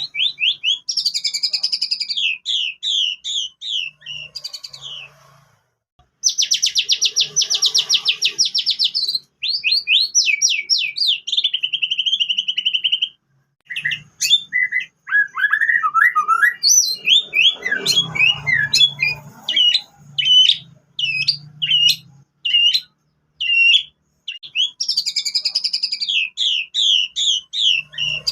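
White-rumped shama (murai batu) singing loudly in fast repeated whistled phrases and rapid trills, its song filled in with canary phrases. It breaks off briefly a few times between bouts.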